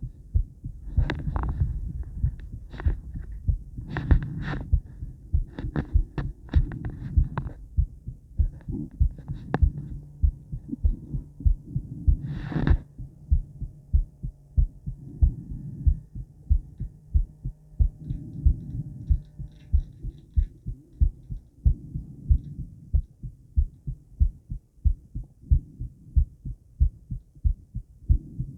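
A woman's own heartbeat recorded close up at rest, before exercise: a steady, regular train of low thumps. Sharp crackling knocks break in several times in the first eight seconds and once more loudly about twelve seconds in.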